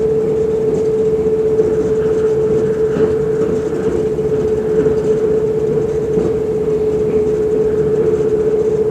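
Electric passenger train running along the track, heard from inside the carriage: a steady rumble of the running train with a constant humming tone over it.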